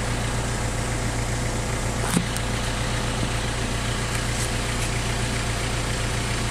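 Diesel truck engine idling steadily, its injection pump freshly calibrated and refitted. One sharp click about two seconds in.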